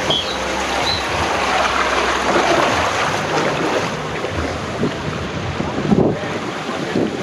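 Rush of water and wind on the microphone as a rider slides down an open flume water slide, with a few short knocks, the loudest about six seconds in.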